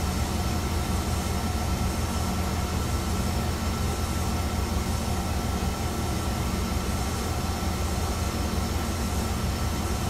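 Chizu Express HOT3500 diesel railcar heard from inside, a steady drone of engine and running noise with a faint constant whine.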